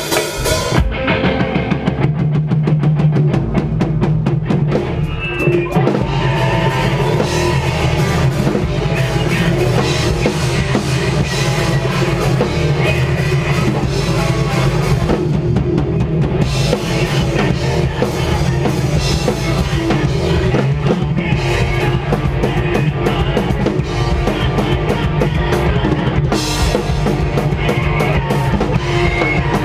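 Post-hardcore band playing live: a loud, steady drum kit with bass drum, under electric guitars and bass.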